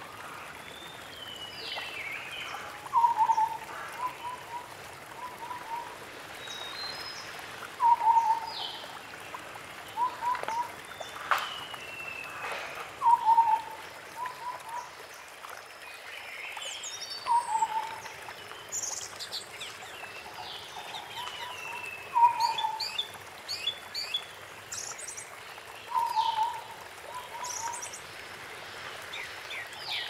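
White-browed scimitar babbler singing: short runs of two to four low, hollow whistled hoots, repeated every few seconds. Higher chirping and trilling calls come in between them.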